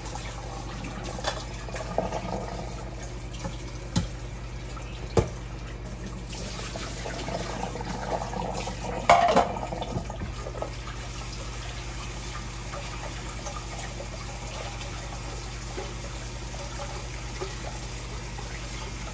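Kitchen faucet running a steady stream of cold water into a colander, rinsing cooked noodles and cabbage. A few knocks of cookware against the sink come through, with a louder clatter about nine seconds in.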